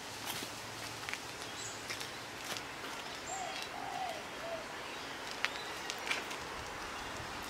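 Outdoor birdsong over a steady hiss: a bird gives four short low arched calls a little over three seconds in, with a couple of brief high chirps and a few faint clicks.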